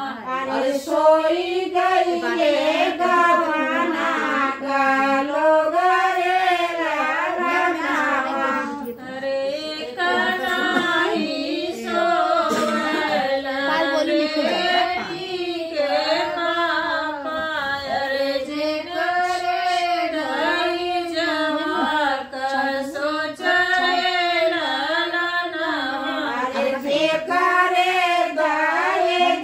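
Women singing a traditional North Indian wedding folk song (shaadi ke geet), the melody rising and falling in short repeated phrases.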